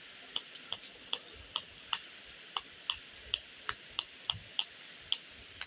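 Bubbles of a rainbow silicone pop-it fidget toy pressed in one after another by fingers, giving short popping clicks about three a second at an uneven pace.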